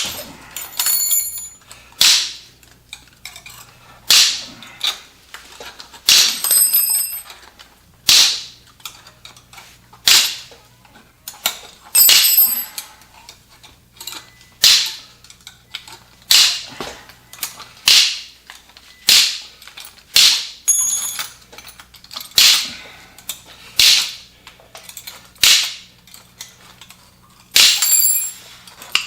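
Steel spokes of a dirt bike wheel being cut through one after another to free the hub from the rim, each cut giving a sharp metallic snap, roughly one every two seconds, some followed by a brief high-pitched ring.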